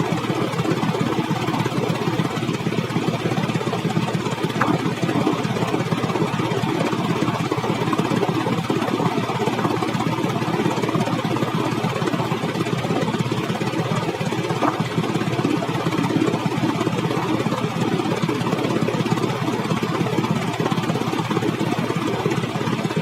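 A vehicle's engine running steadily, an even rumble with no change in pitch or load.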